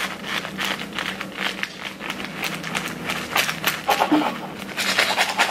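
Paper burger wrappers crinkling and rustling in quick irregular crackles as burgers are cut with a knife, over a steady low hum.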